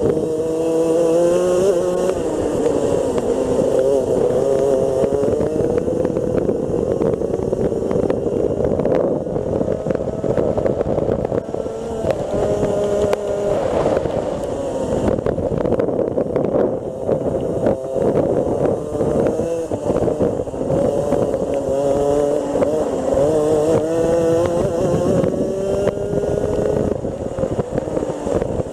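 Rotax Senior Max 125 cc single-cylinder two-stroke kart engine heard up close from on board, its pitch climbing under full throttle and falling away as the driver lifts for corners, over and over.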